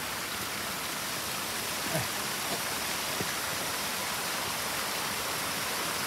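Mineral spring water running and splashing down a small cascade over mineral-crusted terraces: a steady, even hiss, with a few faint taps about two and three seconds in.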